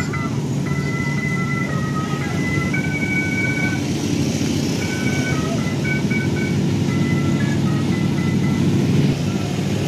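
Motorcycle engine running steadily under music: a simple melody of held high notes stepping from pitch to pitch.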